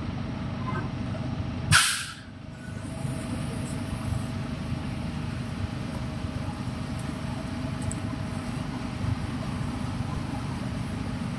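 Steady low rumble of wind buffeting the microphone, with one short, sharp hiss about two seconds in.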